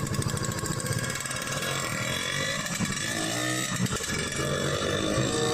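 Small motor-vehicle engine running with a fast, steady firing rattle, the engine sound of a bajaj auto-rickshaw.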